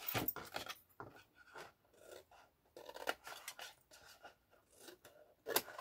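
Scissors snipping small wedges off the ends of a folded sheet of double-sided patterned craft paper: a string of short, irregular snips and paper crackles, with a louder burst of paper noise near the end.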